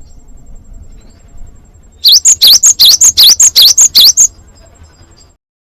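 Cinereous tit (glatik batu) calling a fast run of about a dozen sharp, high notes, each dipping and then rising in pitch, about five a second. The run starts about two seconds in and stops abruptly after a little over two seconds.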